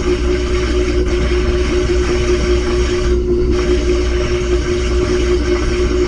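Samsung front-loading washing machine running, heard from inside its stainless drum: a loud, steady mechanical hum with a strong held tone over a low rumble.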